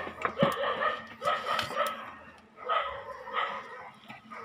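A dog barking, about four separate barks spread over a few seconds, with a few faint clicks between them.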